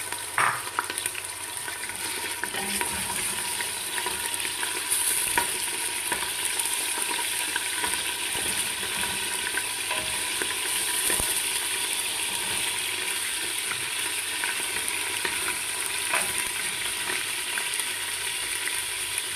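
Chunks of beef frying in oil and clarified butter (smen) in a stainless steel pot: a steady sizzle, with a wooden spoon knocking and scraping against the pot now and then as the meat is turned.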